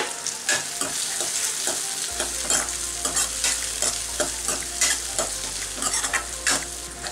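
Steel ladle stirring and scraping tomatoes, onions and split green chillies frying in oil in a steel kadai: a steady sizzle under frequent short clinks and scrapes of metal on metal.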